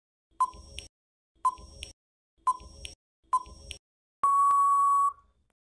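Quiz countdown-timer sound effect: a short electronic tick about once a second, four times, then one steady beep lasting just under a second that marks time up.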